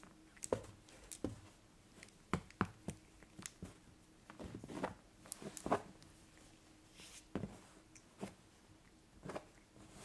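Irregular soft taps and scratchy rustles from play on a fabric sofa: long acrylic fingernails scratching and tapping the upholstery and a Maine Coon cat pawing at a rope cord. The handling is busiest around the middle.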